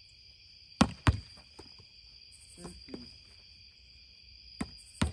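Insects chirring steadily in high, even bands. A few sharp knocks are heard over it, the two loudest close together about a second in, and fainter ones later.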